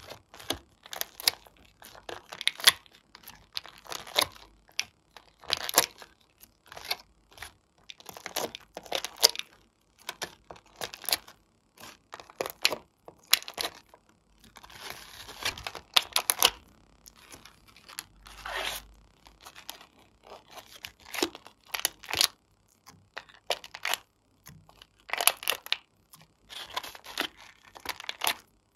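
Thin clear plastic tray crinkling and clicking as it is handled and pieces are pressed out of its cups, in irregular sharp crackles. A denser stretch of crackling comes about halfway through.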